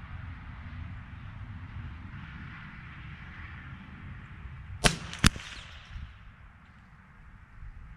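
Two sharp rifle-shot reports, about half a second apart, about five seconds in, over steady wind rumble on the microphone.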